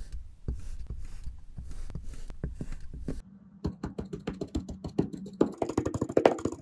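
Kinetic sand crunching and crackling in rapid small clicks as a wooden tool presses into moulded pieces. It drops off briefly a little past three seconds in, then comes back denser and grows loudest near the end.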